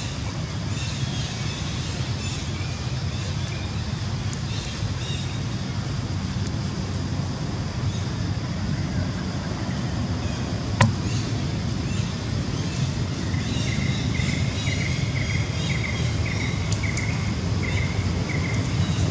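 Steady low outdoor rumble with small birds chirping faintly over it, a run of repeated chirps in the second half, and a single sharp click about eleven seconds in.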